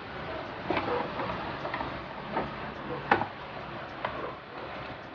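Scattered light clicks and knocks of plastic printer parts being handled and pried apart during disassembly, the sharpest about three seconds in.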